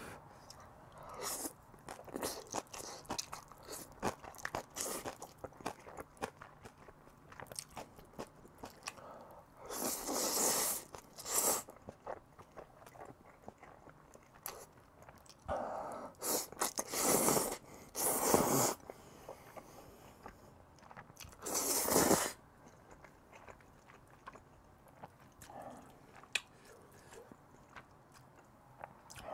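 Close-miked eating of jjajangmyeon: wet chewing and lip smacks throughout, with several loud slurps of black-bean noodles about a second long in the middle part.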